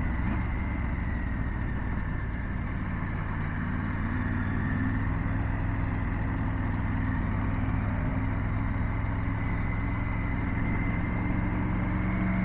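Triumph Tiger 900's three-cylinder engine running steadily under way at moderate speed, heard from the rider's seat with a rush of wind noise over it.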